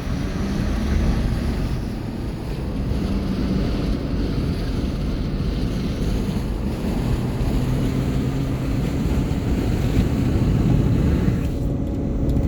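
Steady road and wind noise inside a car moving at freeway speed, with a low steady engine hum underneath.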